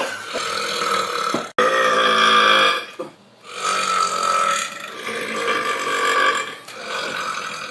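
Men belching on purpose: long, drawn-out burps one after another, with a brief break about a second and a half in and again about three seconds in. The last burp is held for about four seconds.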